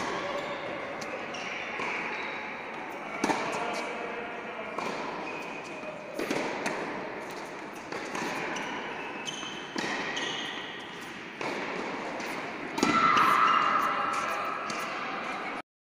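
Tennis balls being struck and bouncing in an indoor tennis hall, sharp knocks a few seconds apart that echo in the large room, over a murmur of voices. The sound cuts off suddenly near the end.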